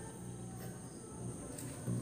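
Faint steady hum and hiss from the restored Onkyo amplifier's speaker output while its input is touched, with a thin steady high whine above; the amplifier is now passing signal.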